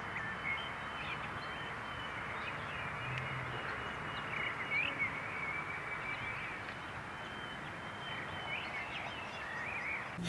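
Outdoor ambience: a steady hiss with short bird chirps now and then.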